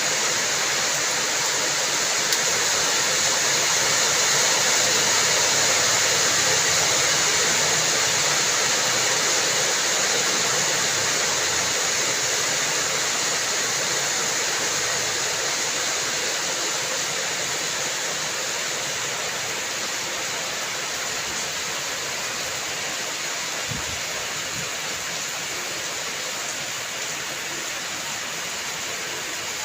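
Steady rain falling, an even rushing hiss of water that grows slowly a little quieter.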